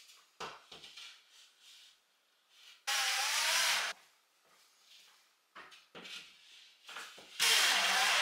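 Handling of a plasterboard panel, with light knocks and a loud scraping rush for about a second, three seconds in. Near the end a cordless drill-driver runs for about a second, driving a screw into the plasterboard.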